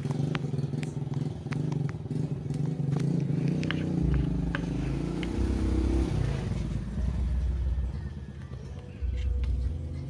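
An engine running steadily, settling into a low rumble from about four seconds in, with a few light clicks and taps of plastic parts being handled.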